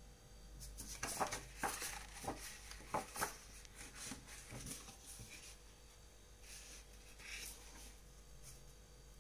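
Faint brushing and tapping of a paintbrush working watercolour paint on paper. A quick run of soft strokes and dabs starts about a second in, and a few more come later.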